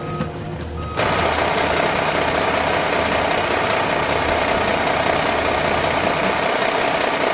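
A steady beep cuts off at the start, then from about a second in a loud, steady heavy engine runs without change.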